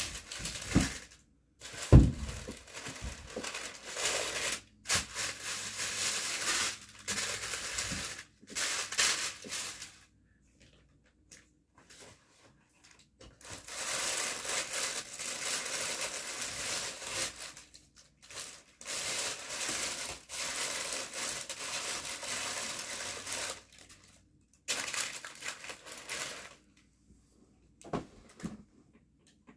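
Rummaging through crinkly packaging: long stretches of rustling that stop and start, with a couple of sharp knocks about two seconds in and another near the end.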